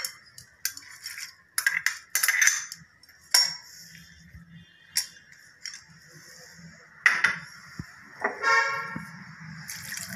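A steel ladle clinking and scraping against a ceramic plate as it stirs dry split lentils, with the grains rattling; near the end water starts pouring from a glass jug onto the lentils to soak them.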